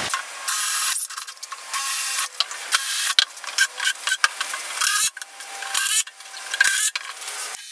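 Cordless drills running in short, irregular bursts, boring and fastening through birch plywood into the steel tabs of a square-tube frame.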